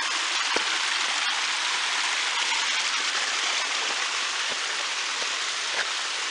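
A small brook running over bedrock: a steady sound of flowing water, with a few faint knocks.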